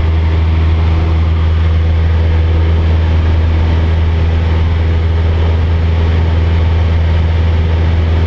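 Cessna 172's piston engine and propeller running steadily in level flight, heard from inside the cabin: a loud, even, low hum with a steady rush over it.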